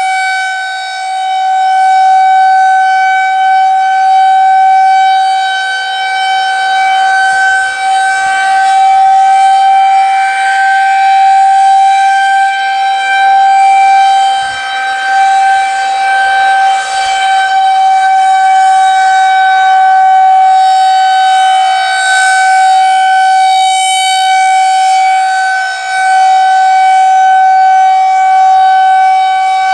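Federal Signal 2001-130 single-tone rotating electromechanical warning siren sounding a steady tone at constant pitch. Its loudness swells and fades every few seconds as the rotating horn sweeps toward and away.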